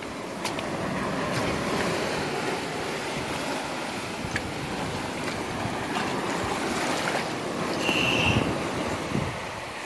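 Sea surf washing over a rocky reef shoreline in a steady rush, with some wind on the microphone. A short high-pitched tone sounds about eight seconds in.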